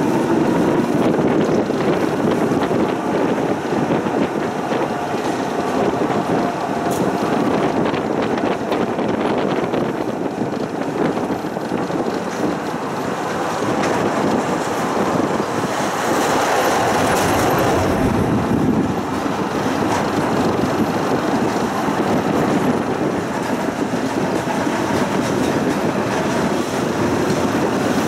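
Tram running along its rails, heard from inside the car: a steady noise of wheels on track that grows louder and brighter for a couple of seconds a little past halfway.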